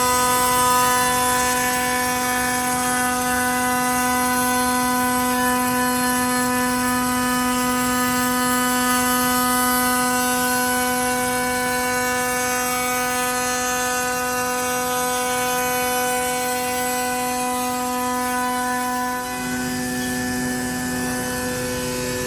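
Power woodworking machine running with a steady whine, its tone shifting about nineteen seconds in.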